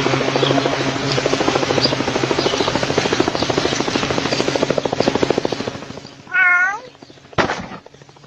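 Cat sounds: about six seconds of fast, even rattling, then one loud meow that rises and falls, followed about a second later by a single sharp knock.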